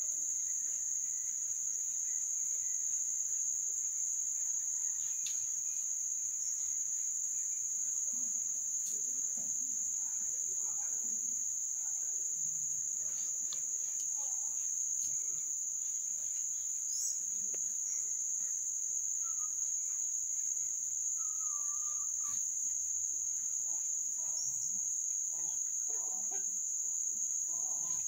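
Steady, high-pitched drone of insects, one unbroken tone held at the same pitch.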